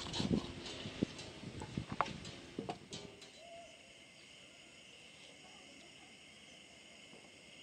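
A knife and hands working a raw chicken in an aluminium basin: scattered knocks and clicks for about three seconds. After that the handling stops and a steady high insect chorus carries on.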